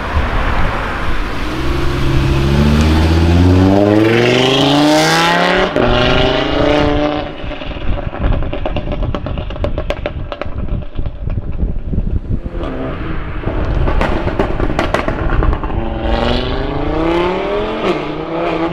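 Audi RS3 8V's turbocharged 2.5-litre five-cylinder, fitted with a Milltek exhaust, accelerating hard twice: the revs climb steeply from about two seconds in, and again near the end. In between, the exhaust gives sharp crackles and pops.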